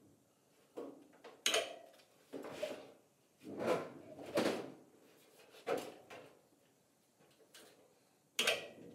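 Steel truck bedside panel being shifted and pushed into place against the body: a series of irregular sheet-metal knocks and scrapes.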